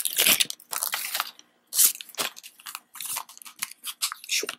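Crinkling and crackling of a clear plastic wrapper being handled and pulled away from a small plastic toy lunch box, in short irregular crackles with a brief pause about a second and a half in.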